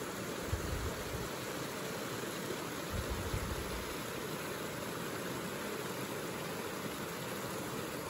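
Steady rushing of water spilling over a small concrete weir into a stream pool, with a few low bumps of wind or handling on the microphone.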